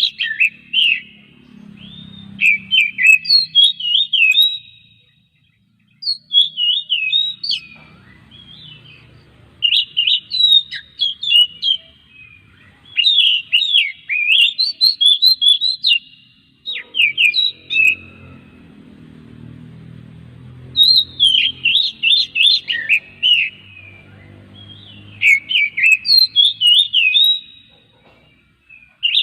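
Oriental magpie-robin (kacer) singing in a series of phrases of rapid, varied whistled notes with sharp up-and-down glides, each phrase a few seconds long with short pauses between. A faint low hum lies underneath.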